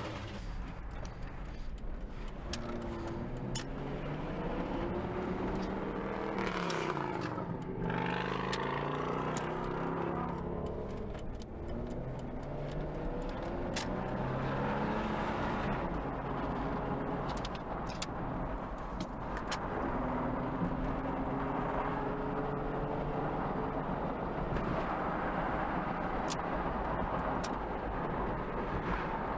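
Chevrolet S10 Blazer engine running while driving, its pitch rising and falling as it speeds up and eases off, with a few light clicks.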